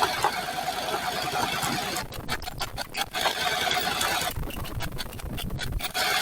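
Honda NC750X motorcycle's parallel-twin engine running at low speed, with a fast, even, rhythmic chatter that breaks up twice in the middle.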